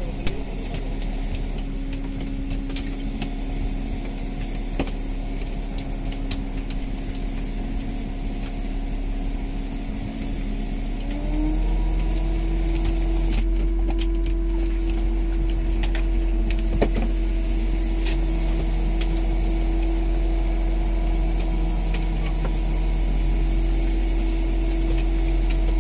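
Fishing boat's engine running with a steady drone that steps up in pitch and gets louder about eleven seconds in, with scattered light knocks.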